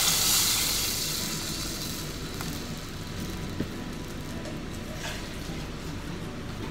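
Water poured into a hot pot of sautéed vegetables, hissing and sizzling as it hits, the sizzle dying away over the first couple of seconds. After that a steady low background noise remains, with one small click about halfway through.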